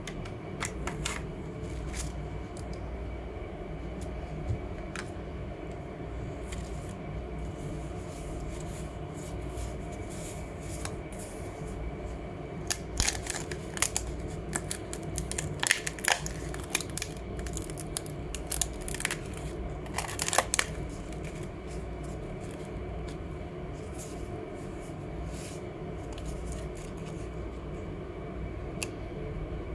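Dry leaves crackling and tearing as they are bent and broken apart by hand, in a cluster of sharp crackles about halfway through, over a steady low hum.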